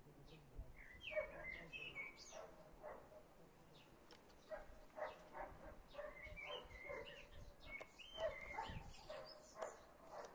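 Faint animal calls: short, high, whining calls that bend up and down, coming in clusters, with a few light clicks between them.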